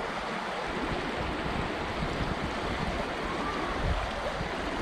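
Shallow river water running over stones and through small riffles, a steady rushing noise.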